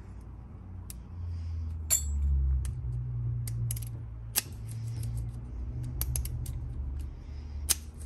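Small metallic clicks and scrapes of a freshly repinned 5-pin mortise lock cylinder being handled and reassembled, over a low rumble. Three sharper clicks stand out, at about two seconds, about four and a half seconds, and near the end.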